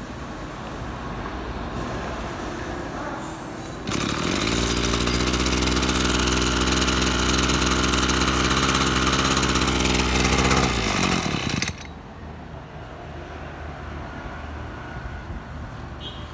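Small two-stroke engine of a Maruyama 230 brush cutter idling, then opened up to high revs about four seconds in, held there for about seven seconds, and let drop back to idle.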